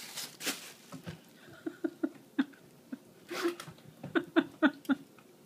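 Crumpled plastic grocery bags rustling as they are handled, with short pitched vocal sounds: a few scattered ones around the middle and a quick run of about five near the end, the loudest part.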